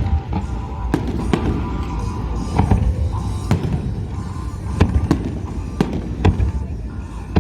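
Aerial fireworks bursting: about ten sharp bangs at irregular spacing, roughly one or two a second, over a continuous low rumble, with music playing underneath.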